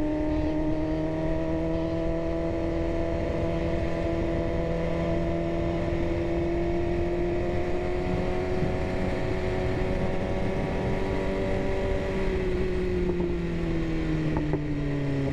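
BMW S1000RR inline-four engine under way at steady revs. Its pitch creeps slowly up for most of the time, then eases down near the end as the throttle comes off, with constant wind noise on the microphone.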